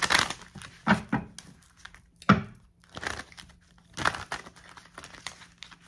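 A deck of tarot cards being shuffled by hand: a series of short, irregular card swishes and rustles.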